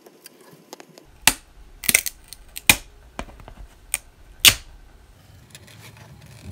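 Sharp plastic clicks and knocks as a freshly 3D-printed PLA box is pried off the printer bed and handled: about five separate clicks, irregularly spaced, the loudest near the end.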